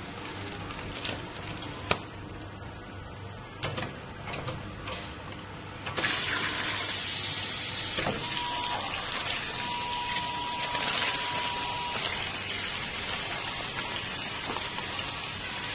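Bag-in-Box liquid filling machine at work: a few sharp clicks and knocks as the bag's spout is fitted to the filling head, then, about six seconds in, liquid starts rushing through the filling nozzle into the plastic bag with a steady hiss.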